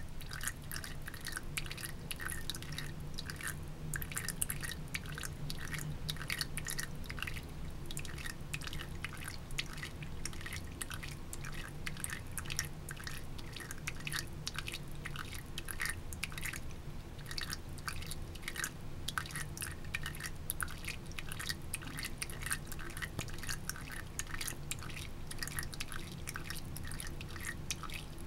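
Thin stream of water trickling from a bathroom sink faucet, splashing and spattering irregularly into the basin over a low steady hum.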